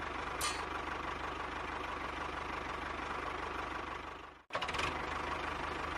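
Tractor engine running steadily with a fast, even chugging. It cuts out for a moment about four and a half seconds in, then picks up again.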